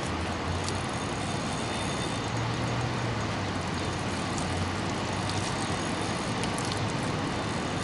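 Steady rushing of water pouring through a dam spillway, with a few faint high ticks.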